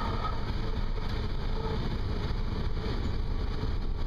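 Cessna 172 engine and propeller running steadily, heard from inside the cabin as an even low rumble.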